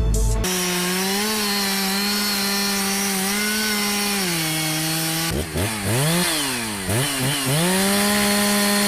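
Two-stroke chainsaw running at high revs. Its engine pitch holds mostly steady, then drops and climbs back several times past the middle as the chain bogs and recovers, typical of cutting into wood.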